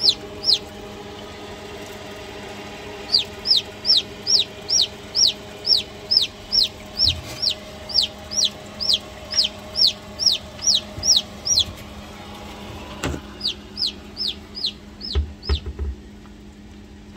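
Chicks peeping: short high peeps, each falling in pitch, about two to three a second in long runs, stopping for a few seconds around the middle. A steady low hum runs underneath, with a sharp click about thirteen seconds in and a few low thumps near the end.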